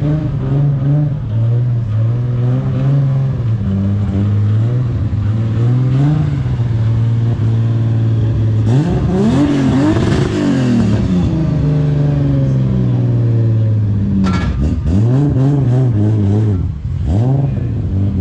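R34 Nissan Skyline's straight-six engine running with a steady low note as the car rolls past. It is revved once about halfway through, the pitch rising and falling, then blipped several times near the end with a few sharp cracks as it pulls away.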